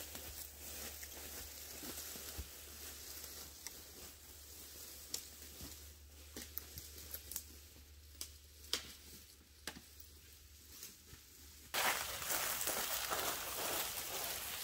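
Faint scattered crackles and rustles, as of dry leaves and brush being disturbed. About twelve seconds in, a sudden, louder, continuous rustling like footsteps through dry leaves begins.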